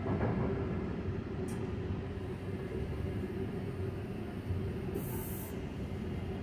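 Sounder commuter train coach running on the rails, heard inside the coach at its doors: a steady low rumble with a faint constant hum, and a short high hiss about five seconds in.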